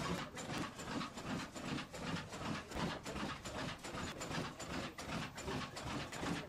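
Giant 20,175 cubic inch single-cylinder four-stroke oil engine running steadily at about 160 RPM, its open valve gear and crank giving a rhythmic mechanical clatter with repeating knocks a few times a second.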